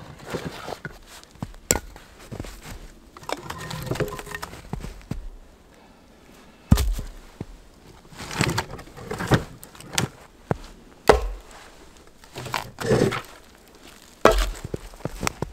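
Firewood being unloaded from a sled: split logs knocking against each other and thudding down onto snow, several separate sharp wooden knocks with rustling between them.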